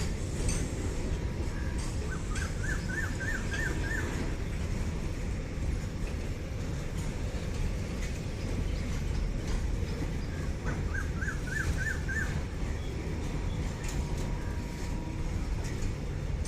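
A bird calls twice, each time a quick phrase of about six short repeated notes, over a steady low rumble of background noise.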